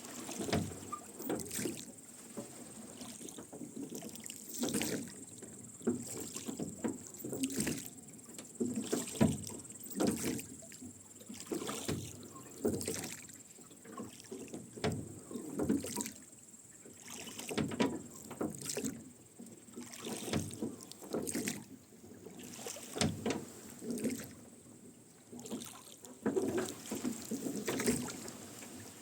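Rowboat being rowed: oars dipping and splashing while the oarlocks creak. The strokes come in a steady rhythm, roughly one a second.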